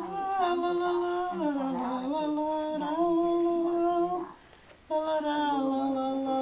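Elderly woman humming a slow lullaby in long held notes, dipping in pitch once, with a short breath break a little past four seconds in.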